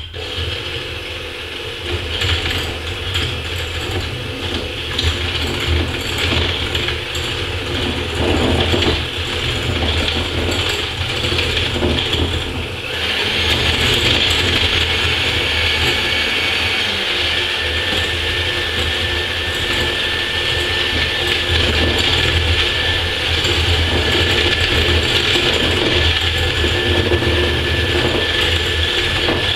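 Electric hand mixer running steadily, its beaters whisking eggs and sugar in a glass bowl; it gets louder about thirteen seconds in.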